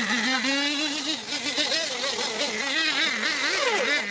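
Nitro RC monster truck's small glow-fuel O.S. engine running, its pitch rising and falling about three times a second as the throttle is worked.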